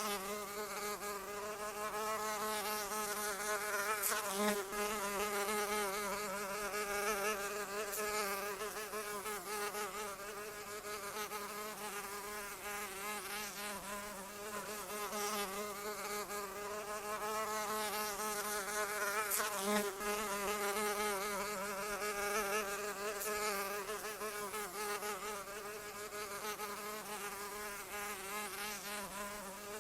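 A flying insect buzzing without a break, its pitch wavering up and down as it flies, the buzz swelling and fading slightly now and then.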